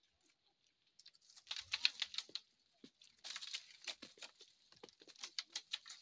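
Close rustling and crackling from hands picking at and breaking apart small fruit and stems, in three spells of rapid clicks.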